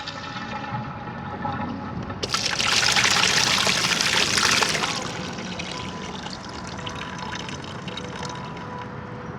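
Flush water from a homemade toilet trickling and pouring through its drain pipe, with a louder rush of water from about two seconds in to about five seconds, then a steady trickle.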